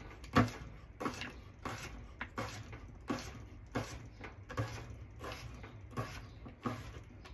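Kitchen knife chopping cucumber on a plastic cutting board: a steady run of about ten crisp knife strikes, roughly one every 0.7 seconds.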